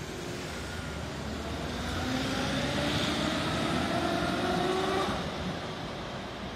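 Konstal 13N tram passing close by: its traction motors and gearing whine, rising in pitch as it gathers speed, over the rumble of its wheels on the rails. The sound is loudest in the middle as the tram goes past and fades near the end.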